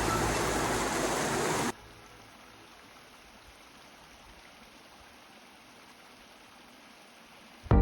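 Rushing water of a waterfall or stream, a loud even hiss that cuts off abruptly about two seconds in, leaving only a faint hiss.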